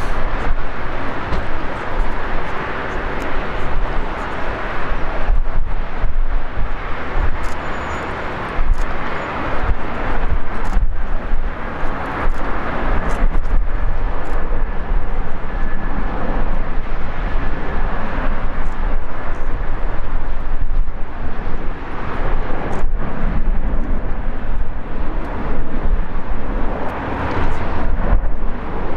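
Distant CFM56-7B jet engines of a Boeing 737-700 at takeoff power as it rolls down the runway: a steady, even rushing noise.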